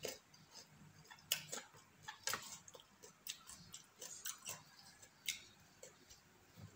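Close mouth sounds of eating by hand: chewing and lip smacks heard as irregular sharp clicks, about one every half second to second.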